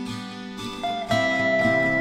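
Background music: acoustic guitar strumming and plucking, with a new chord ringing in about a second in.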